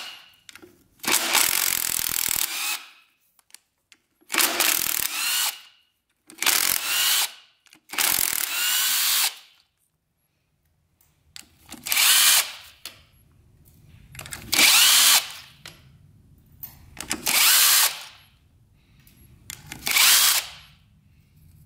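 Power drill-driver spinning out the clutch pressure-plate bolts on a 1986 Honda CR125 engine, in eight short bursts of about a second each with pauses between.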